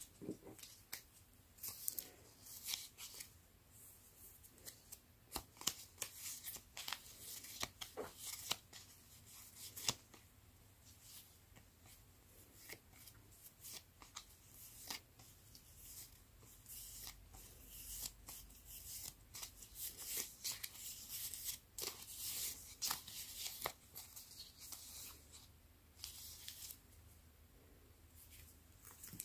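A stack of small printed paper stickers being shuffled and leafed through by hand, with many quick paper flicks and rustles.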